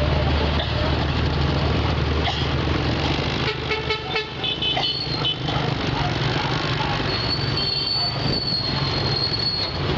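Motor vehicle engine running steadily while driving, with a short horn toot about three and a half seconds in and a thin, high steady squeal through the last three seconds.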